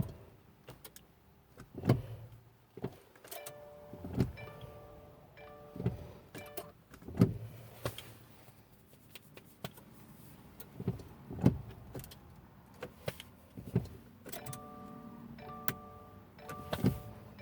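Repeated clicks and knocks from the pedal and start button of a 2015 Subaru Crosstrek's push-button ignition as the start is tried again and again, with the dashboard's short warning chimes beeping in two stretches. The engine never cranks, because a faulty brake-light switch doesn't register the pressed brake pedal.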